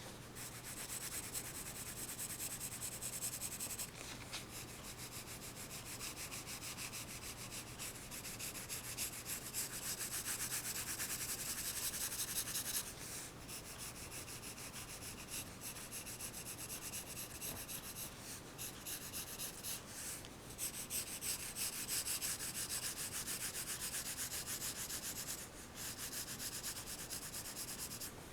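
Pencil scratching across paper in quick back-and-forth shading strokes, pausing briefly several times.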